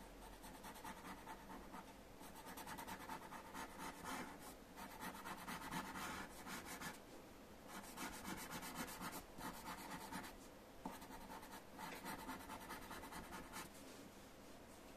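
Pencil sketching on paper: many short, quick strokes in runs of a few seconds each, with brief pauses between. The strokes stop about a second before the end.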